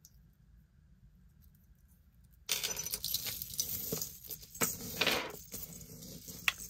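Chunky gold-toned metal chain link necklace jangling and clinking as it is picked up and handled. The jangling starts suddenly about two and a half seconds in, after a quiet start.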